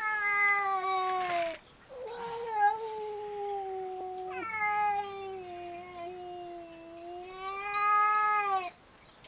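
Domestic cat yowling: three long, drawn-out calls, the second and third running almost into one.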